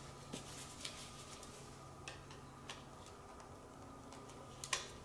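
A few faint, sharp metal clicks and taps, the loudest near the end, as snap ring pliers nudge the camshaft's centre bearing round to line it up with its locating bolt hole. A steady low hum runs underneath.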